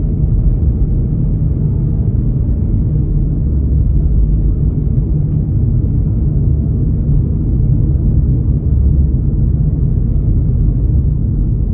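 Road noise inside a moving car's cabin: a steady low rumble of tyres and engine while cruising on a winding paved road.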